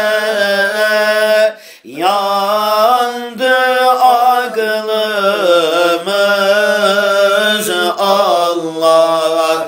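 A voice singing a Turkish Sufi hymn (ilahi) in long, drawn-out melismatic phrases, the pitch bending and wavering, with a short break for breath about two seconds in.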